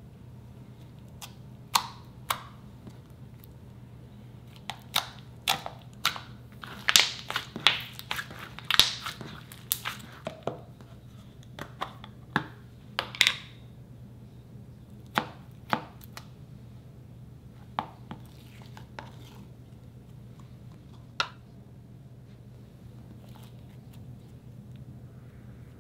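Slime being pressed, squeezed and stretched by hand, giving a run of sharp sticky clicks and pops, thickest a few seconds in and thinning out later. A low steady hum runs underneath.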